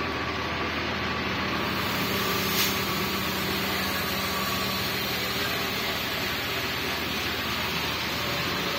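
Yutong Master coach's diesel engine running at low revs with a steady low drone as the bus creeps forward. A brief sharp noise cuts through about two and a half seconds in.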